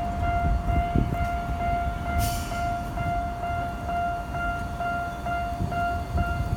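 Japanese railway level-crossing warning bell ringing its electronic repeated 'kan-kan' tone, nearly three strokes a second, over the low rumble of a Ginza Line train. A short hiss comes about two seconds in.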